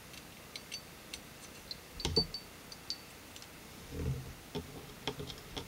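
Light metallic clicks and ticks of an AR-15 bolt carrier group being handled as a new firing pin is fitted into it, with a louder clatter about two seconds in and a duller knock about four seconds in.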